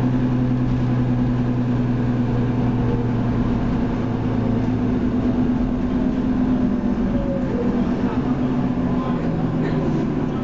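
Leyland Lynx Mk2 bus with a Cummins L10 diesel engine running under way, heard from inside the passenger saloon as a steady low engine hum over road rumble. The engine note shifts about halfway through.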